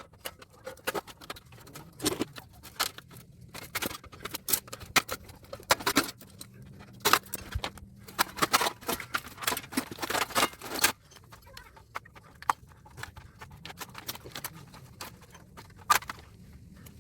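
Small metal scrap parts from an air-conditioner condenser clinking and clattering as they are handled and dropped. There is a dense run of quick knocks and clicks, which thins out about two-thirds of the way in.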